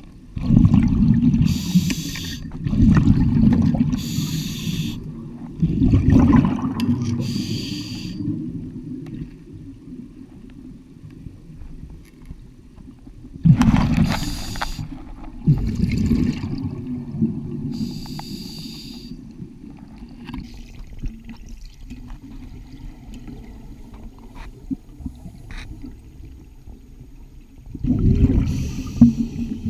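Scuba regulator breathing underwater: hissing inhalations and louder rumbling bursts of exhaled bubbles, a breath every couple of seconds at first, then a long quieter stretch with only a murmur before a last breath near the end.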